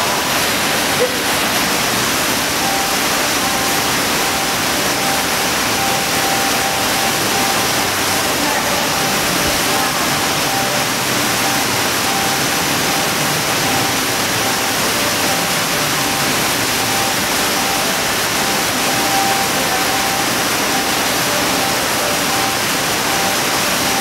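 Steady rushing noise, even and unbroken, with a faint thin steady tone running under it from a few seconds in.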